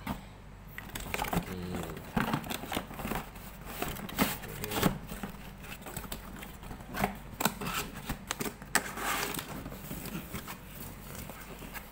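Handling noise from a cardboard box and a laptop power adapter: irregular knocks, scrapes and rustles as the box is packed.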